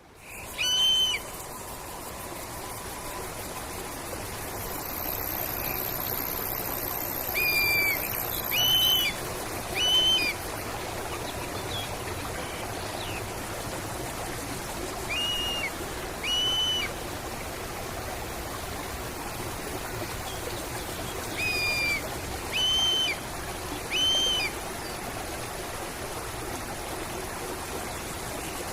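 Nature soundscape of a steadily running stream, with a bird calling loud, short arched notes every few seconds, singly and in clusters of two or three.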